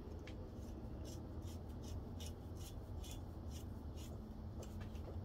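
Faint light ticking and scraping of a steel nut being spun by hand down the crankshaft threads onto a magneto flywheel, a few soft ticks a second over a low steady hum.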